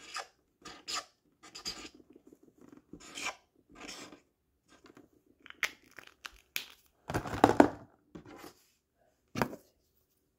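Paper rustling and scratching: short scratchy strokes of a pen writing on a paper sign, with a louder rustle of handled paper about seven seconds in and a shorter one near the end.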